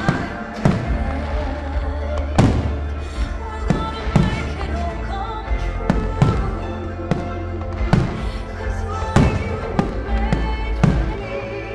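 Aerial firework shells bursting in a steady run of sharp bangs, about one a second, over the display's accompanying music played through loudspeakers.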